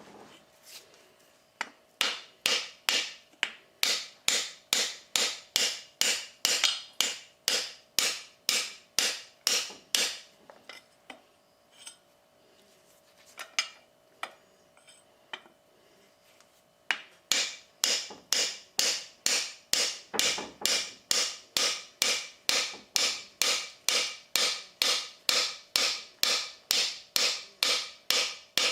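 Rapid, evenly spaced hammer blows on metal, two to three a second, each with a bright ring. There are two long runs of blows, separated by a pause of several seconds that holds only a few scattered knocks.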